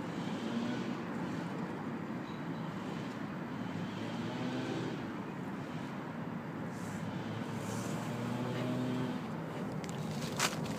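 Steady urban outdoor background noise, like distant traffic, with a single sharp click near the end.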